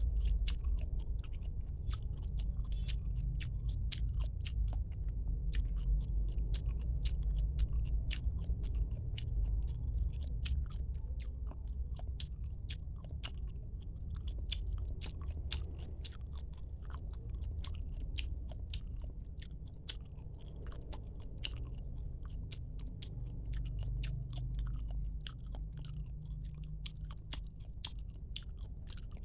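Close-miked chewing of squid, a dense run of irregular wet mouth clicks and smacks over a steady low rumble.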